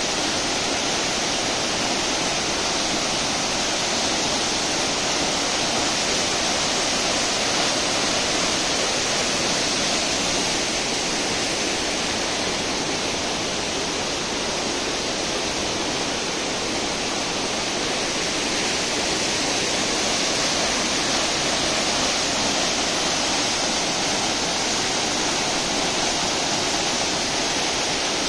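Floodwater pouring over a low dam's overflow and cascading down rocky falls: a steady, unbroken rush of water.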